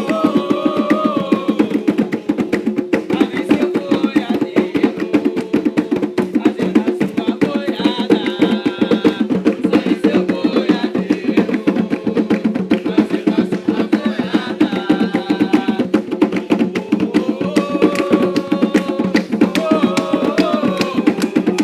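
Atabaque hand drums playing a fast, steady Umbanda rhythm, with voices singing a ponto over it.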